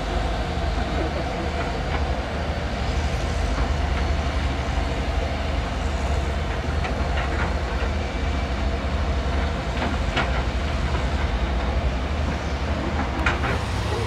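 Heavy excavators' diesel engines running with a steady deep rumble, with a few short sharp sounds over it, the loudest near the end.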